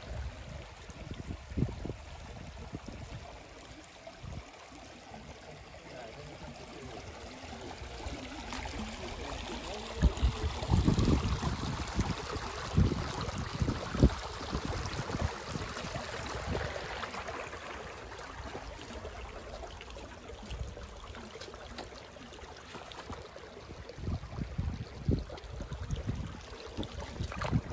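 Shallow stream running and trickling over rocks, a steady wash, with irregular low thumps and rumbles over it that are loudest about ten to sixteen seconds in.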